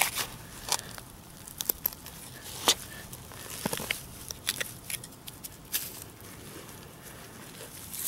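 Steel hand digger scraping and clicking against buried glass shards as it cuts into the soil, a scattered run of short scrapes and sharp ticks.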